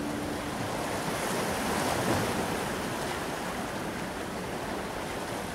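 Ocean waves washing in, one swell building and easing off about two seconds in, as the last held note of the background music dies away.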